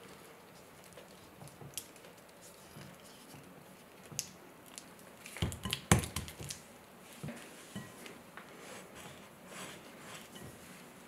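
Silicone-coated balloon whisk mashing soft butter in a glass mixing bowl: soft squishing and scraping with scattered light clicks of the wires against the glass, and a short cluster of louder knocks about six seconds in.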